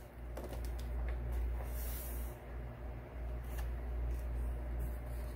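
Pages of a hardback picture book being turned and handled: a short paper swish about two seconds in, and several light taps and clicks from the pages and cover, over a steady low hum.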